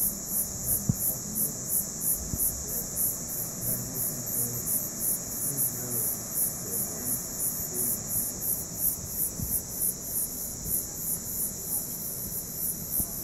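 Night insects chirping in a steady, even rhythm of about three high pulses a second, over a constant high drone from more insects.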